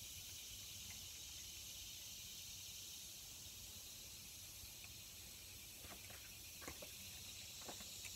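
Quiet outdoor ambience: a faint, steady high hiss over a low rumble, with a few soft clicks near the end.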